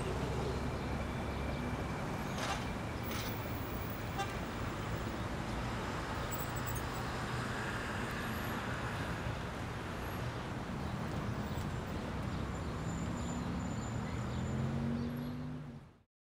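Steady street traffic noise of passing cars, with an engine note rising slightly in the last few seconds before the sound cuts off suddenly.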